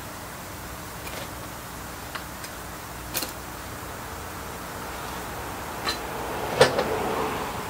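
Scattered light clicks and taps as a bonsai pot is handled and the moss-covered root ball is worked loose. Near the end comes a rustle of soil and roots as the root ball is lifted from the pot, with a sharp knock about six and a half seconds in.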